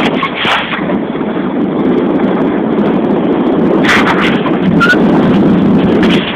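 Wind buffeting the microphone: a loud, steady rumbling rush, with a sharper gust about four seconds in.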